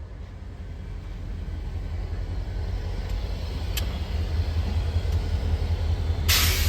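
CSX manifest freight train rolling slowly past at close range: a low rumble that grows steadily louder, with a couple of faint clicks and a short, sharp hiss near the end.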